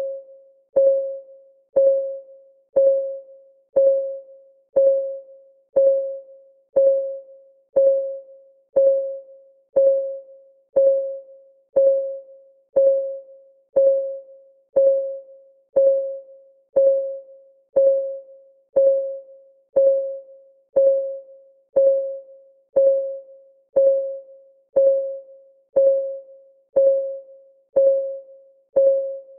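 Countdown timer's clock-ticking sound: a short, pitched tick once a second, each one sharp at the start and dying away quickly, in an even, unchanging beat.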